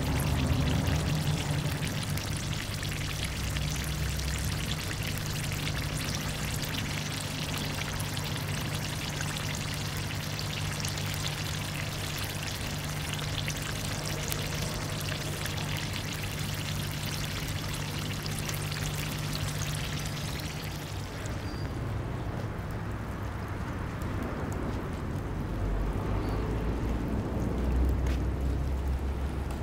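Olive oil sizzling and crackling in a pan of ajillo, a dense spitting crackle with a steady low hum underneath. About two-thirds of the way through the crackle thins out and becomes softer.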